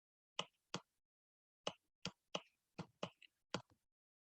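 A series of about eight short, sharp clicks at uneven intervals, some of them in quick pairs.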